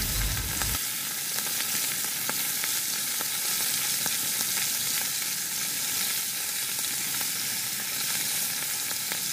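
Bata fish frying in hot oil in a kadai: a steady sizzle with scattered small crackles.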